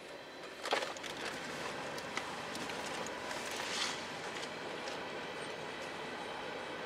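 Freight train of CSX open-top hopper cars rolling past at a grade crossing: steady wheel-on-rail noise with scattered clicks and clanks, the loudest a sharp clank about a second in.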